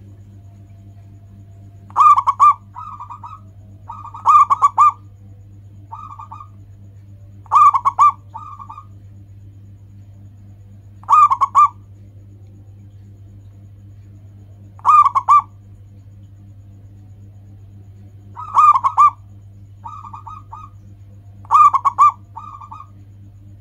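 A zebra dove of the local Indonesian type (perkutut lokal) cooing its song: seven loud, short trilled coos, about every three to four seconds, several of them followed by a softer coo.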